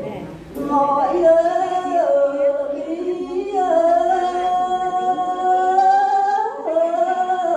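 A woman sings lượn, a Tày folk song, in a single voice into a microphone. Her long notes are held and bend in pitch, with one long sustained note through the middle.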